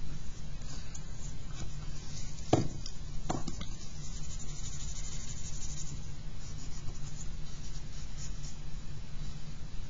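Faint scratching of an eraser and then a charcoal pencil working on drawing paper, over a steady low hum, with a few light knocks around three seconds in.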